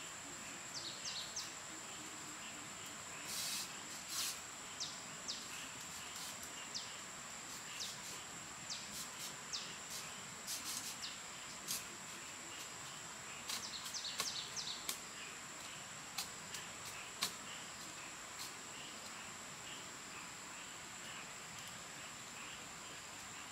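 Forest ambience: a steady high-pitched insect drone, with scattered sharp clicks and short chirps, busiest a few seconds in and again around the middle.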